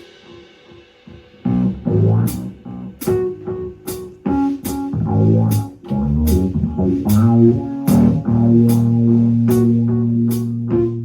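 Electric bass guitar and drum kit playing together. After a brief lull, plucked bass notes run under regular cymbal strokes, and about eight seconds in the bass settles on one long held low note.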